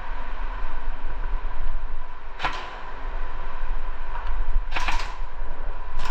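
Airsoft gun firing three separate single shots, each a short sharp snap: the first about two and a half seconds in, the second near five seconds, the third at the very end. A steady low rumble sits underneath.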